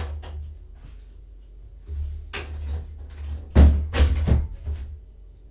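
A door being closed: a knock about two seconds in, then a quick run of louder clunks and thumps as the door and its latch shut.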